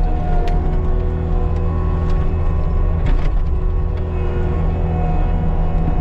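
Compact track loader's diesel engine running steadily under work, with a steady whine over it and a few short clanks and knocks.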